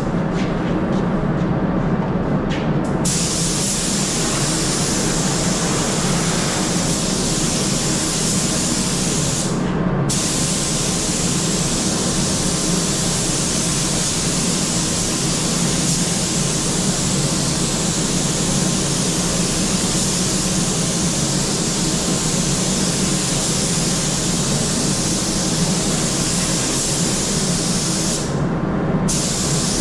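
Compressed-air spray gun hissing steadily over a low steady hum. The hiss cuts out briefly near the start, again about ten seconds in, and again near the end, as the trigger is let go.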